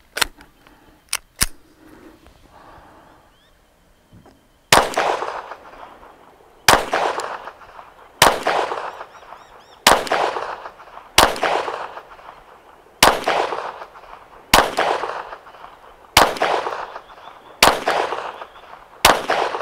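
A few sharp clicks, then a Volquartsen Black Mamba .22LR semi-automatic pistol fires ten single shots at an even pace, about one every one and a half seconds. Each shot is a sharp crack followed by a short echoing tail.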